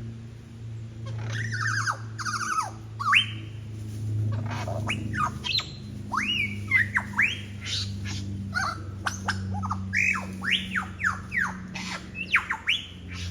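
Superb lyrebird singing a fast medley of mimicked bird calls: a run of varied whistled notes that sweep up and down in pitch, packed more tightly in the second half.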